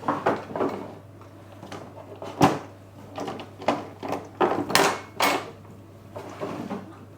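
Kitchen tins and cookware being handled and set down: a string of separate knocks and clunks, the loudest about two and a half seconds in.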